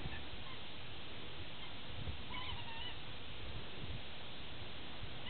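Steady outdoor background noise with a low rumble, and a faint short warbling animal call about two and a half seconds in.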